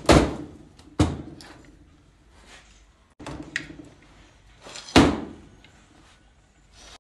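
Steel clutch drums and parts from a BMW 6HP19 automatic transmission knocking together and being set down on a steel workbench. A sharp metallic clunk at the start, another about a second in, a softer one around three seconds, and a loud one about five seconds in, each with a short ring, with a few light clicks between.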